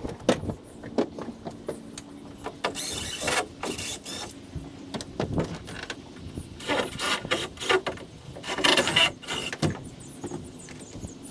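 Cordless drill backing out screws in several short runs of about a second each, with clicks and knocks of hardware and tools being handled between them.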